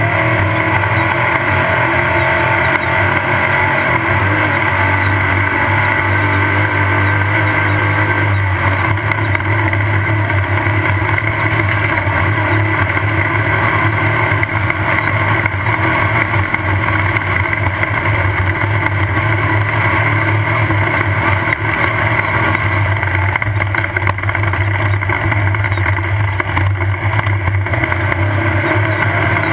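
Off-road race car's engine running hard at a steady, unchanging speed, heard from on board, with a constant clatter of small knocks and rattles over rough ground.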